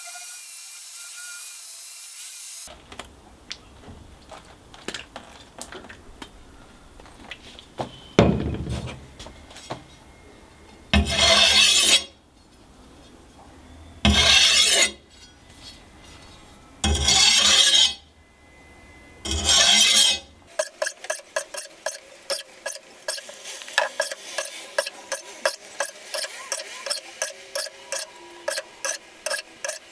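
Workshop tool work: a steady running sound for the first few seconds, then light scraping, four loud noisy bursts about a second long each, and then a fast run of short rubbing or filing strokes, several a second.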